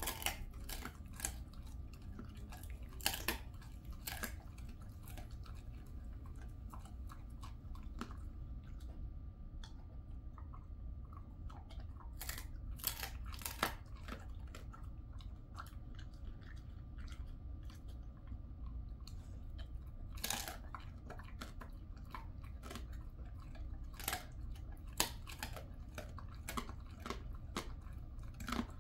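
Jindo dog chewing a dried chicken foot: irregular crunches of the dry bone and skin, coming in clusters with short pauses between.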